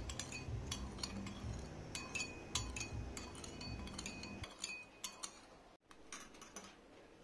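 Metal spoon stirring and clinking against a ceramic bowl, dissolving sugar into fish sauce; the irregular clinks stop after about four and a half seconds.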